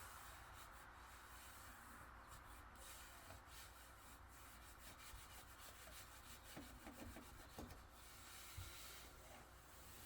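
Faint rubbing of a vinyl window graphic being smoothed by hand onto a car's rear window glass, with a light knock near the end.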